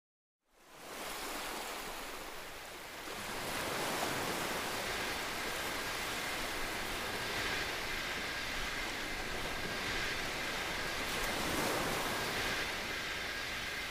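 A steady rushing noise, like wind or surf, fades in from silence about half a second in and holds with slow, gentle swells.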